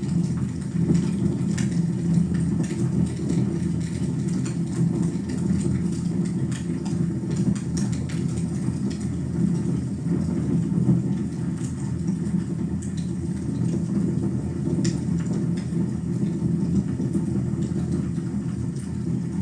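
Wood fire burning in a fireplace: a steady low roar of the flames with scattered crackles and pops.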